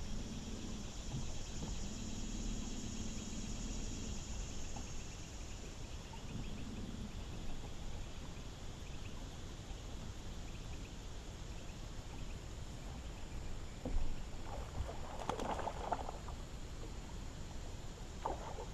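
Steady open-air noise on a bass boat on a river. A low hum comes and goes in the first several seconds, and a short louder splashy burst comes about three-quarters of the way in, as a hooked fish is played toward the net.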